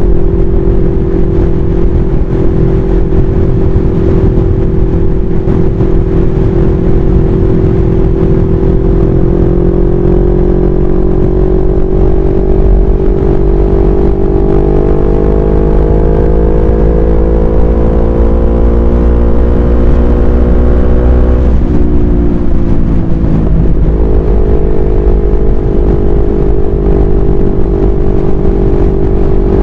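CFMoto 400NK's parallel-twin engine running at highway speed, heard from the rider's seat: a steady drone that climbs gradually in pitch for about ten seconds under acceleration, then drops suddenly a little past two-thirds of the way through and settles steady again. Heavy wind rumble on the microphone underneath.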